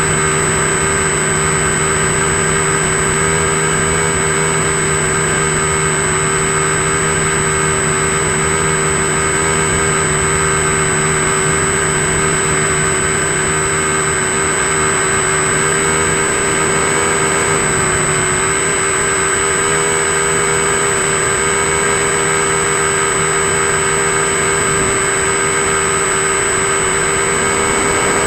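RC model plane's motor and propeller running steadily in flight, picked up by the onboard camera with a steady whine and wind rush.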